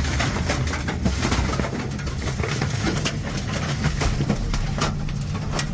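Tornado winds blasting around a locomotive cab, a continuous rushing noise over a steady low rumble, with many sharp knocks of debris hitting the cab and its windows.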